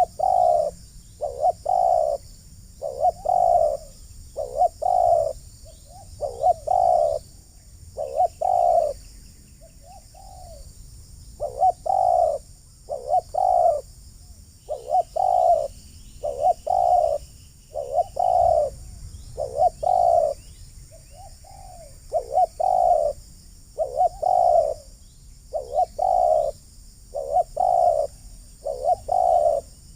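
Spotted doves cooing over and over, each phrase a short run of two or three deep coos, repeating every second or two.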